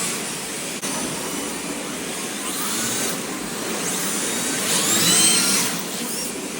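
Electric RC drift cars running, their motors whining in rising and falling glides as they accelerate and lift off, over a steady hiss. The loudest pass comes about five seconds in.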